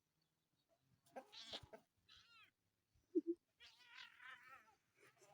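A cat vocalising in several short, wavering meows and yowls over about four seconds.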